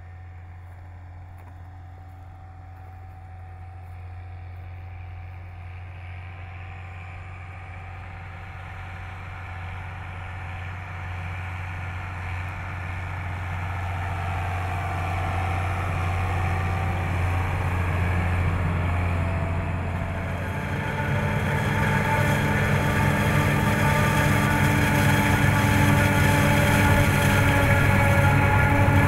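Farm machinery engines under load, growing steadily louder: a tractor hauling a loaded silage trailer draws near. About two-thirds of the way in, a louder, rougher din takes over: a New Holland FR9080 forage harvester chopping sorghum, with the tractor and trailer running alongside.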